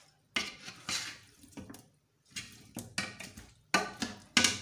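Ladle scooping boiled pineapple chunks and their liquid in a pot: a series of short wet splashes and knocks, about eight in all, the loudest near the end.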